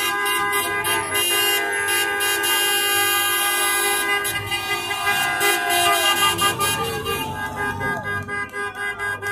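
Many car horns honking at once in a continuous, overlapping din of celebratory street honking, with people shouting in the middle.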